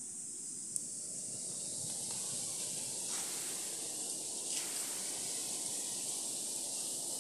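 Steady high-pitched hiss with no speech, and a single small click about a second in.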